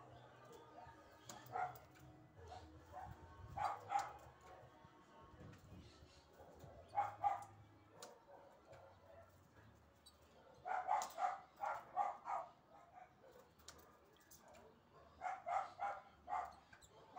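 A dog barking in short runs of three to five barks, repeated about half a dozen times.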